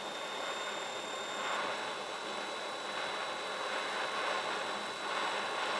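Butane blowtorch flame hissing steadily as it heats the neck of a spinning brass rifle case for annealing. A faint high whine runs under it and shifts pitch about one and a half seconds in.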